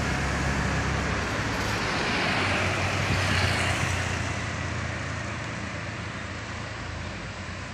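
A tour bus drives past. Its engine hum and tyre noise fade steadily as it moves away.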